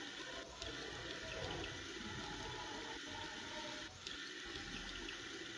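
Water running steadily from a tap and splashing over hands being washed; it stops abruptly near the end.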